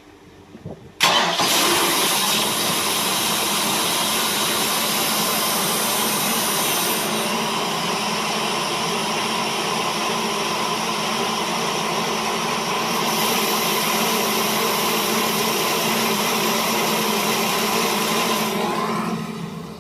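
Loud, steady machine noise used as a test noise for soundproofing, switched on abruptly about a second in and dying away near the end. For about six seconds in the middle its highest hiss drops away while the rest holds steady.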